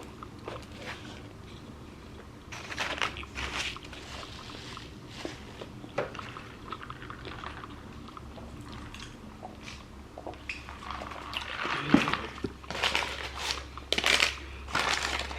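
Close-miked eating: bites and chewing of a grilled sourdough egg sandwich, with crisp crunches coming in clusters about three seconds in and again near the end.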